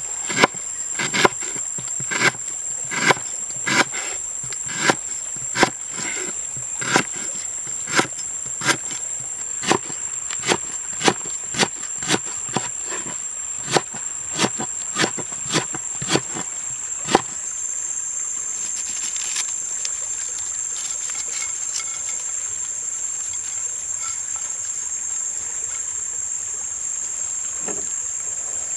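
A large knife chopping lemongrass stalks on a wooden cutting board, a crisp knock a little more than once a second, stopping a little past halfway through. A steady high-pitched insect drone runs underneath.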